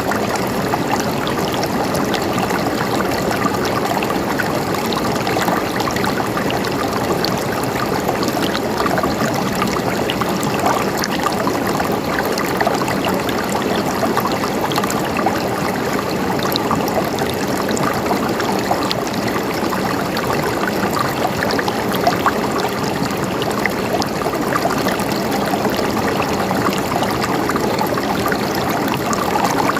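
River water flowing and babbling in a steady, unbroken rush.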